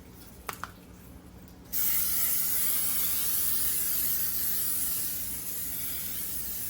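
Aerosol can of Pam cooking spray hissing in one continuous spray of about five seconds, greasing a muffin pan, starting about two seconds in; a few light clicks come before it.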